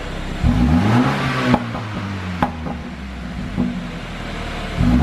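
A 2016 BMW 428i's turbocharged four-cylinder engine, tuned for exhaust pops, is blipped from idle. The revs rise about half a second in and fall back. As the revs drop, the exhaust gives sharp pops and cracks, and the engine settles to idle. A second rev starts near the end.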